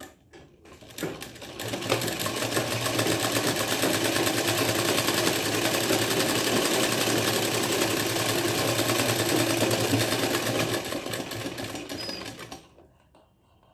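Black straight-stitch sewing machine running steadily, needle chattering rapidly, as it sews a second stitch line alongside a plain seam to reinforce it. A few clicks come first, the machine gets up to speed about two seconds in, and it stops shortly before the end.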